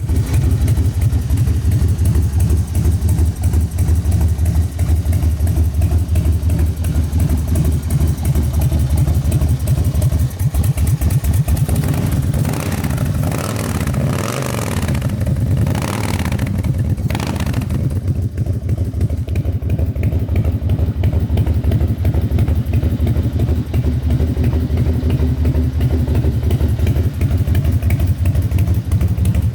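Harley-Davidson FXDWG Dyna Wide Glide's 1450 cc air-cooled V-twin idling with a steady, pulsing beat, changing in tone for a few seconds about halfway through.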